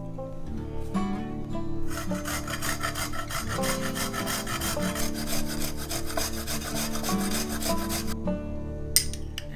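A garlic clove being grated on a fine stainless rasp grater, making rapid back-and-forth scraping strokes that start about two seconds in and stop near the end, with background music underneath.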